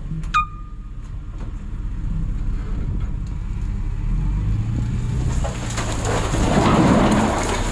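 Box truck driving on the highway, its road rumble heard from inside the cab. A short click comes about half a second in. Over the last few seconds a rough rushing, crackling noise builds up and grows louder.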